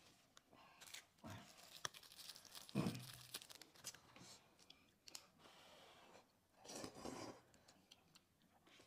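Faint rustling and crumpling of paper napkins, with chopsticks clicking against paper noodle cups and quiet chewing.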